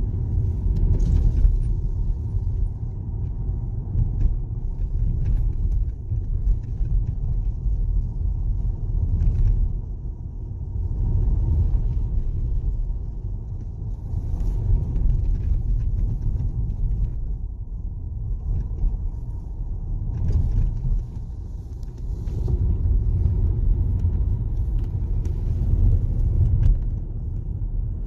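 Low rumble of a car's engine and tyres heard inside the cabin while driving downhill on a narrow mountain road, swelling and easing gently, with a few faint clicks and rattles.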